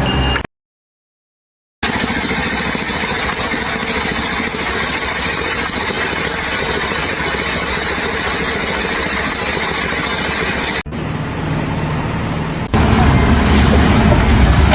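Engine noise from running machinery, steady and noisy with a low hum, broken by abrupt cuts. It begins with about a second of dead silence, and a louder, deeper rumble comes in near the end.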